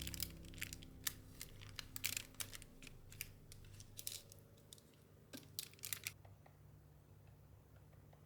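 Quick, irregular small crackles and clicks for about six seconds, under the fading tail of a soft music chord, then only a faint low hum.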